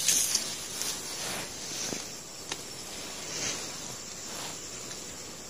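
Dry sugarcane leaves and grass rustling as they are handled and stepped through: several soft swishes that rise and fade, with a couple of faint small clicks.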